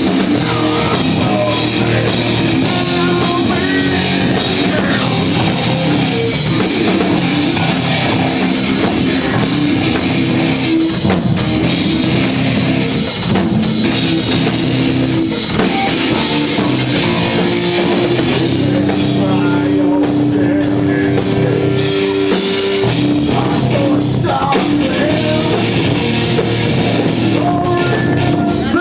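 Live rock band playing loud and without a break: drum kit with cymbals and electric guitar, with a long held guitar note around the middle.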